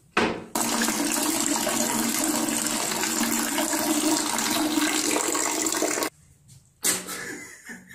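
A steady stream of liquid splashing into the water of a toilet bowl, starting about half a second in and cutting off suddenly about six seconds in. A shorter, quieter sound follows about a second later.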